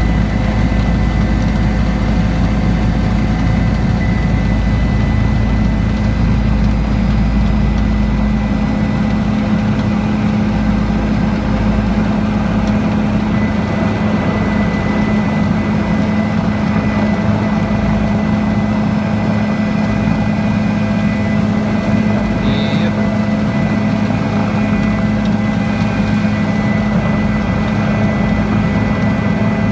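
Bell 407 helicopter's turboshaft engine and rotors running, heard from inside the cabin as a loud, steady drone with a few steady tones. The deepest rumble weakens about nine seconds in.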